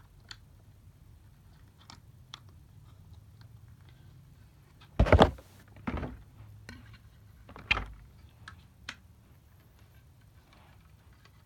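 Handling of a plastic snap-fit model airliner: scattered light plastic clicks, with three louder knocks about five, six and nearly eight seconds in.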